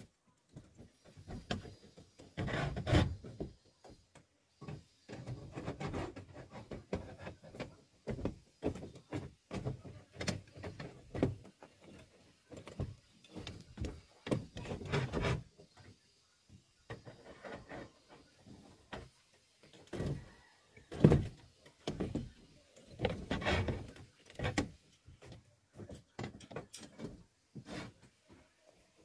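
Steel reinforcing bars and stirrups being handled and wire-tied into a rebar cage on a plywood deck: irregular clinks, scrapes and knocks of steel on steel and on wood. The loudest knocks come about three seconds in and again around twenty-one seconds in.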